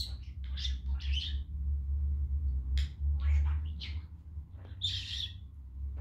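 Pet budgerigar chirping and warbling in a string of short, high calls, one of the strongest about five seconds in, over a steady low rumble.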